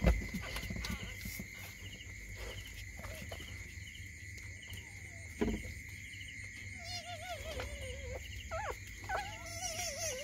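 Crickets chirping in a steady rhythm over a constant high insect drone, with two short thumps, one at the start and one about five and a half seconds in. From about seven seconds in, a puppy whimpers with a thin, wavering whine.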